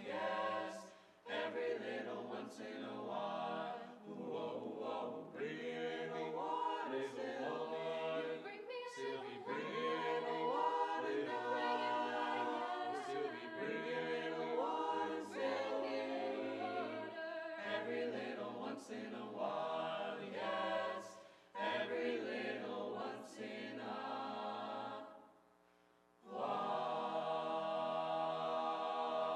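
Mixed-voice youth choir singing a cappella in short rhythmic phrases with brief breaks. Near the end the choir holds one long final chord, which cuts off cleanly.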